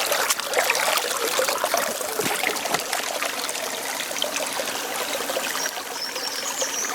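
Water running and trickling steadily over stones in a small mountain irrigation channel.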